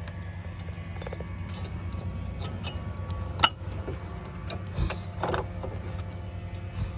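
Scattered light metallic clicks and knocks as a new brake pad is fitted into the front caliper bracket of a 2005 Chevy Malibu disc brake, over a steady low hum.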